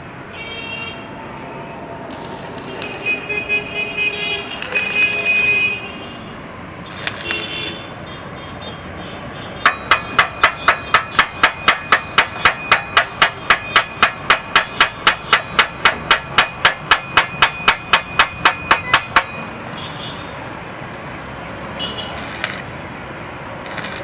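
A hammer beating on the steel exhaust header pipe of an Apache 160 4V motorcycle in a steady run of ringing metallic blows, about three or four a second, starting about ten seconds in and stopping about nine seconds later. Before it, a few scattered metal clanks as the exhaust parts are handled.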